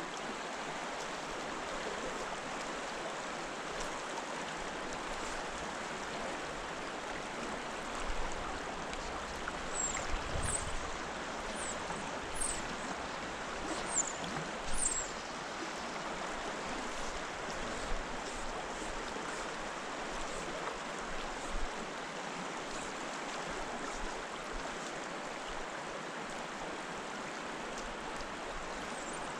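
Steady rush of a flowing trout stream's riffles and current. A few short, high, falling chirps come through about ten to fifteen seconds in.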